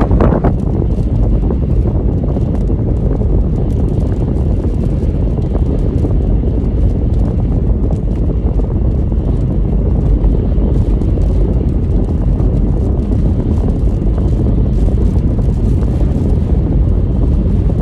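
Strong derecho storm wind blowing hard across the microphone, a loud, steady, low rush that cuts off suddenly at the end.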